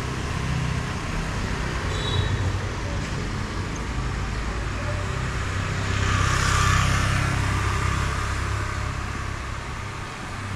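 Road traffic going by: a steady engine hum, with one vehicle passing, loudest about six to seven seconds in.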